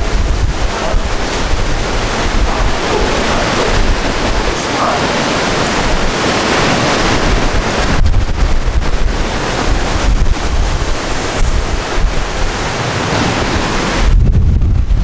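Strong gusting wind rushing through trees and buffeting the microphone, a loud, dense rush with a heavy low rumble throughout. The rush eases at times, most clearly near the end, while the low buffeting goes on.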